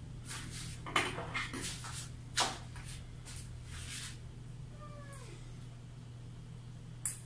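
Sharp clicks and snips from scissors and fishing line being handled, loudest about a second in and again at two and a half seconds, over a steady low hum. About five seconds in comes a short meow that falls in pitch.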